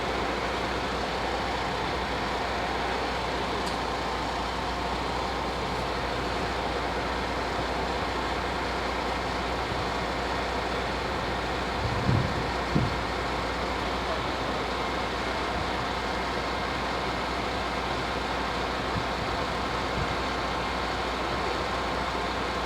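Steady road-traffic noise, with two short low thumps a little past halfway.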